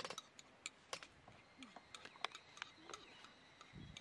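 A few faint, scattered clicks and taps of a spoon against a plastic tub as sauce is spooned onto a plate of sliced vegetables.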